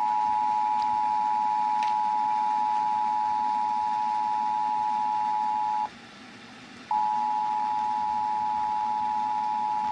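Emergency Alert System two-tone attention signal on broadcast radio: two steady pitches sounding together, breaking off for about a second near the middle and then resuming. It marks the start of a Required Monthly Test of the alert system.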